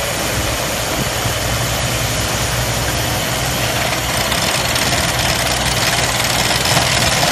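Tractor-mounted borehole drilling rig at work: its diesel engine running steadily under a steady hiss of water and air spraying out of the borehole around the drill pipe.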